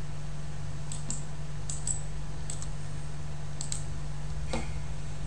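Faint computer mouse clicks, mostly in quick pairs of press and release, about five times, over a steady low electrical hum.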